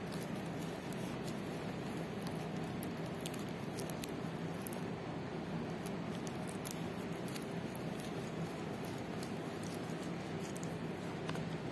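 Steady low hum and hiss with faint, scattered small clicks and taps.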